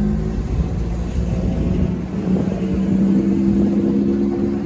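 Locomotive air horn sounding for the grade crossing, a steady chord: one blast ends just after the start, and another long blast begins about two seconds in and cuts off sharply near the end. Road traffic rumbles underneath.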